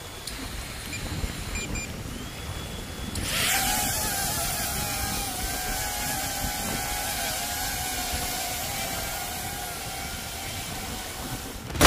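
DJI Avata 2 FPV drone's ducted propellers start abruptly about three seconds in and hold a steady whine with a slight waver in pitch as it flies. Before that, only a low wash of surf on rocks.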